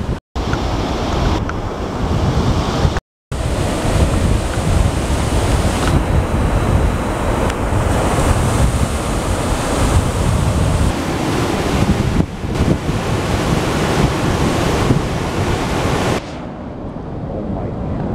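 Atlantic surf washing on the shore under wind buffeting the microphone, a loud, even rush with a heavy low rumble. The sound cuts out completely twice in the first few seconds, and it turns quieter and duller about two seconds before the end.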